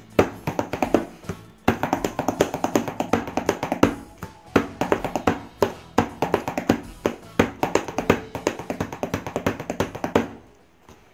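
Fingers drumming rapidly on a cardboard box, a quick run of taps over background music; the drumming and music stop near the end.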